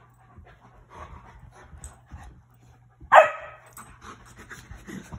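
A dog gives one short, sharp play bark about three seconds in, while an Alaskan Malamute and a Newfoundland puppy wrestle. Around it there is quieter panting and scuffling.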